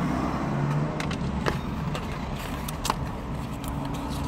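A USB charging cable and a white cardboard smartwatch box are handled, with a few sharp clicks and light paper rustles, loudest about a second and a half and three seconds in, over a steady low rumble.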